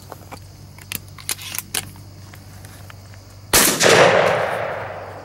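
A single loud shotgun shot fired at a flying mourning dove, about three and a half seconds in, its sound rolling away over a second and a half. A few short sharp clicks come a second or two before it.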